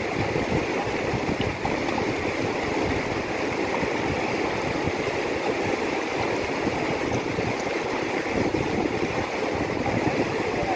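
Mountain river rushing over rocks: a steady, even rush of flowing water.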